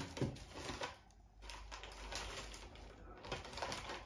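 Tissue paper and clear plastic wrapping rustling and crinkling as a gift is lifted out of its box, in two stretches with a short pause about a second in.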